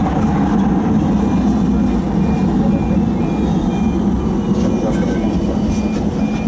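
Steady running noise and electrical hum inside the cab of a Siemens Combino tram, with a short high beep repeating about twice a second from about a second and a half in.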